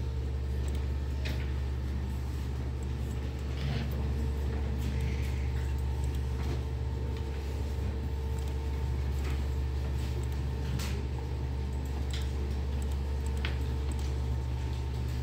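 Steady low hum of a room full of running desktop computers, with a faint steady whine and a few sharp clicks scattered through.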